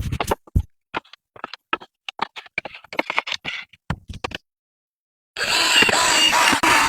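Quick, irregular clicks and scrapes of handwork on small bamboo pieces. They stop abruptly, and after about a second of silence a loud, noisy sound with wavering tones fills the last second and a half.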